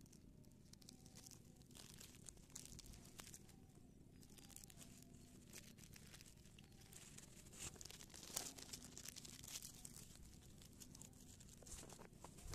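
Plastic bag crinkling and rustling as it is opened and powdered fish bait is poured from it into a plastic bowl, with a denser run of crackling about eight seconds in.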